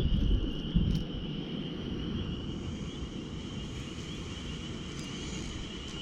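Wind buffeting the microphone with an uneven low rumble, over a steady high-pitched insect chorus.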